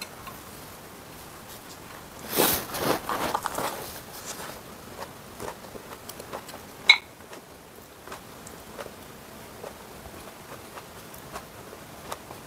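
Close-miked eating sounds: chewing and mouth noises, louder for about two seconds between two and four seconds in, with small clicks of wooden chopsticks on ceramic dishes. A single sharp clink with a short ring near seven seconds.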